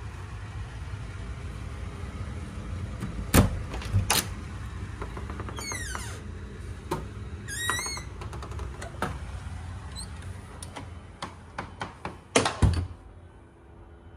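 A series of knocks and clunks, the loudest a double knock near the end, with two short squeaks in the middle, over a steady low hum.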